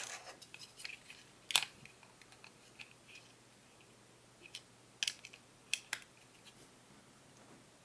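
Small parts of a spring airsoft pistol clicking and tapping as it is handled and taken apart. There is a sharp click about a second and a half in, two more just past the middle, and fainter taps in between.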